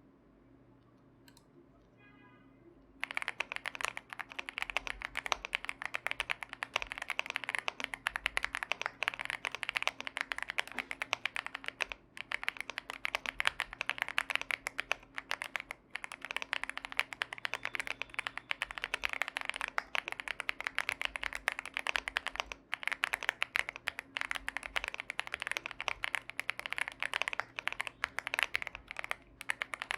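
Fast, continuous typing on a YUNZII AL66 mechanical keyboard fitted with DK Creamery Cookies and Cream tactile switches, with PE foam between plate and PCB. The typing starts about three seconds in and runs over a faint steady hum.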